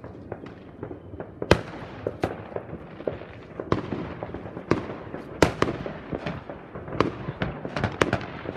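New Year's fireworks and firecrackers going off all around: many sharp bangs at irregular intervals, some close and loud, over a constant crackle of more distant bursts.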